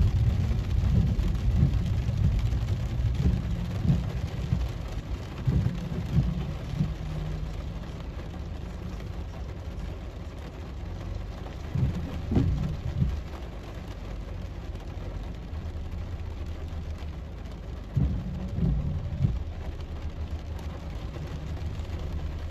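Rain falling on a car's windscreen and body, heard from inside the cabin, over a low road and engine rumble that eases as the car slows to a stop in traffic. A few short knocks stand out about halfway through and again near the end, one of them as the windscreen wiper sweeps.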